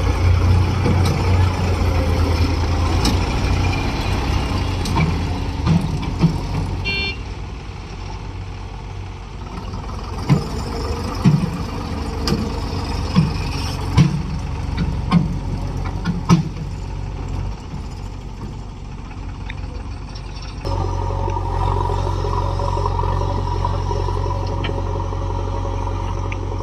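Heavy diesel machinery running steadily, with a series of sharp knocks and clanks in the middle and the engine note stepping up louder about three quarters of the way through, as the machines work to pull a stuck combine harvester out of mud.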